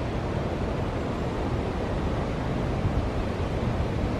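Steady outdoor rushing noise, heaviest and fluttering in the low end, with no distinct events.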